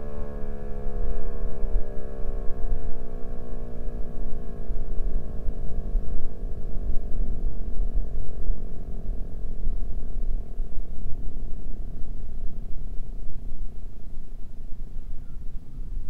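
Nuclear plant emergency warning siren winding down after its test, its several tones sliding slowly lower in pitch and fading out about twelve seconds in. A steady low rumble of wind on the microphone runs underneath.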